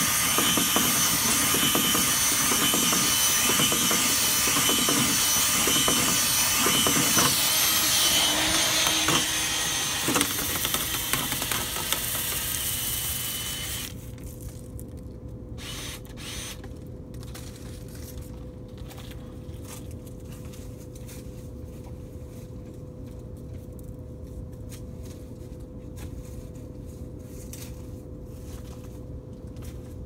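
Cordless drill spinning a dryer-vent cleaning brush on extension rods inside a lint-clogged dryer duct: a loud whirring and scraping that eases off around ten seconds in and stops about fourteen seconds in. A quieter steady hum then remains.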